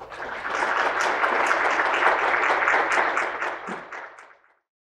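Audience applauding, building up within the first second, then dying away about four and a half seconds in.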